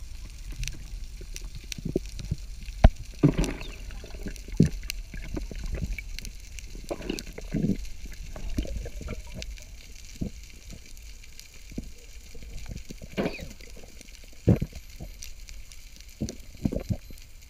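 Underwater ambience picked up by a diving camera: scattered sharp clicks and crackles over a low rumble, with a few brief gurgling bursts of water.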